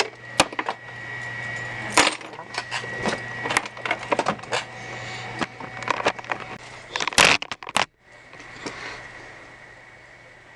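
Metal door-lock hardware being taken apart: irregular sharp clicks and clinks of lock parts and tools, with a quick run of louder clicks about seven seconds in.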